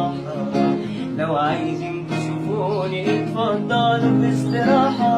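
Music: an instrumental passage of an Egyptian Arabic song, with plucked-string guitar accompaniment between sung lines.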